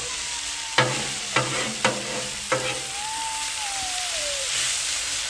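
Food sizzling steadily on a Blackstone steel flat-top griddle while a metal spatula mixes shredded hash browns. The spatula's edge knocks and scrapes against the cooktop four times in the first three seconds.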